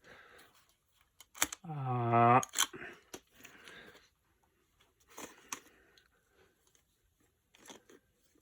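Hands posing a plastic dinosaur figure: scattered clicks, knocks and light rattles from its jointed limbs and loose tail. About two seconds in, a short low hum from a person's voice is the loudest sound.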